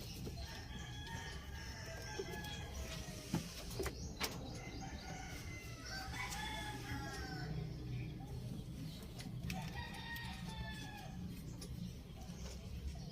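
Rooster crowing several times, each a long drawn-out crow, over a steady low hum. Two sharp knocks come about three and four seconds in.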